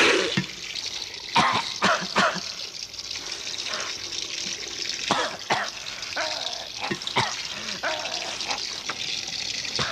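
Water running and splashing, with irregular small knocks and clicks.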